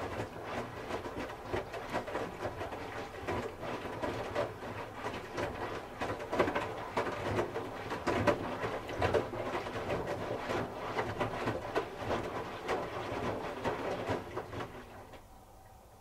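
Hoover H-wash 300 Plus washing machine tumbling a wet load during the wash: water sloshing and wet clothes slapping inside the turning drum over a low hum, until the drum stops about a second before the end.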